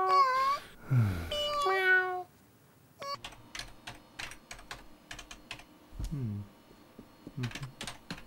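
A cartoon cat meows several times in quick succession. About three seconds in, the meows give way to rapid clicking of a computer keyboard being typed on.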